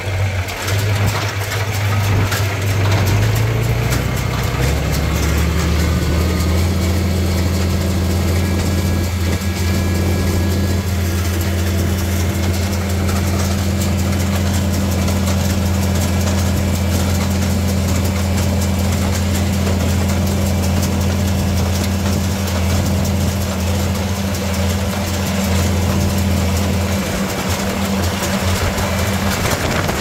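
Farmall 656 tractor engine running, speeding up over the first several seconds and then holding a steady speed.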